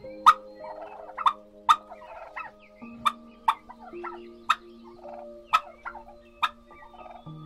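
Domestic turkey toms gobbling over and over, short sharp calls coming every half second to a second, the loudest near the start.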